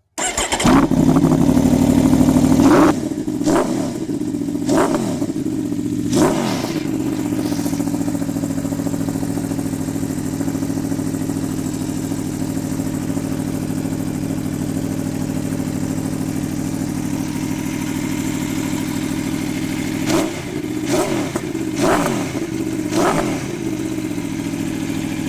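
2015 Aprilia Tuono's V4 engine idling through its exhaust, with three quick throttle blips in the first few seconds and four more near the end, the pitch rising sharply and falling back to idle after each.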